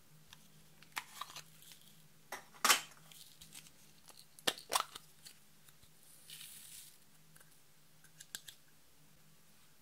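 Small plastic makeup and glitter containers being handled and opened: a series of clicks and taps, with a loud plastic crack a little under three seconds in as a lid comes off. A little after six seconds there is a brief soft hiss of glitter being poured out of a small plastic cup.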